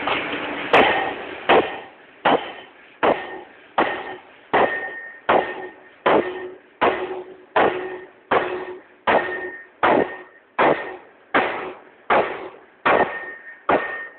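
40cwt Massey power hammer striking a red-hot stainless steel ring forging, about eighteen evenly spaced blows a little more than one a second, each with a short metallic ring. The blows stop just before the end.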